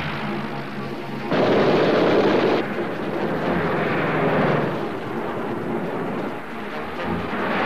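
Propeller fighter planes' engines swelling and fading as the planes dive past. About a second in, a louder, harsher burst lasts just over a second and cuts off sharply.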